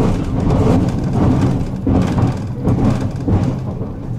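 Tram running between stops, heard from inside the car: a steady low rumble of wheels on rails and running gear.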